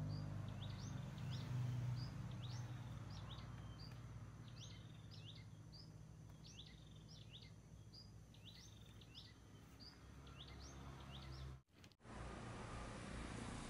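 A small bird chirping over and over, short rising chirps about two a second, stopping a few seconds before the end, over a low steady hum of background noise.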